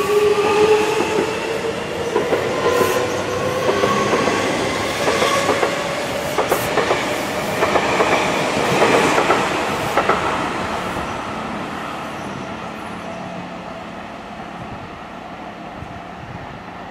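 Seibu 6000-series electric train pulling out. Its traction motors give a rising whine, and its wheels clack over the rail joints. The sound fades steadily over the last several seconds as the train moves away.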